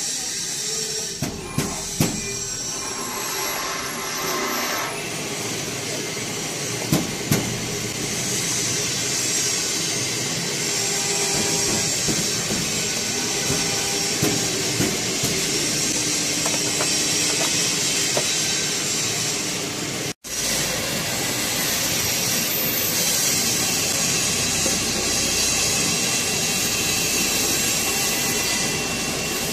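Steady mechanical background noise with a hiss, typical of machinery running in a factory workshop, with a few sharp clicks of handling in the first seconds and again around seven seconds in.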